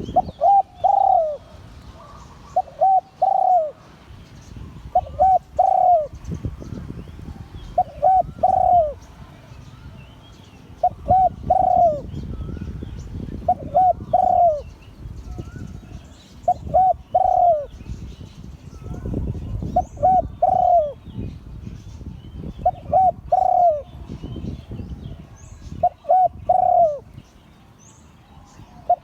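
Spotted dove cooing its song over and over, a phrase about every three seconds, each phrase a few short notes running into a longer coo.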